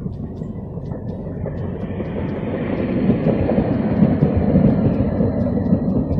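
Articulated low-floor tram passing close by, its wheels rumbling on the rails and growing louder as it draws level, with a thin steady high whine over the rumble.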